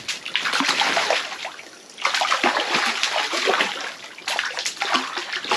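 Water splashing and sloshing in a hole cut through the ice, in irregular bursts, easing off briefly just before two seconds in and again about four seconds in.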